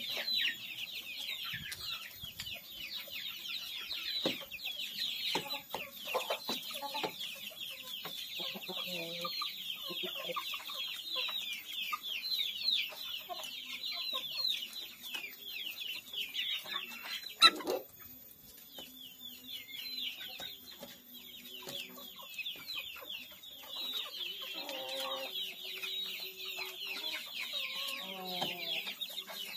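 A flock of young kampung chickens peeping continuously in high, quickly falling notes, with a few low clucks near the end. A single sharp knock sounds a little past halfway.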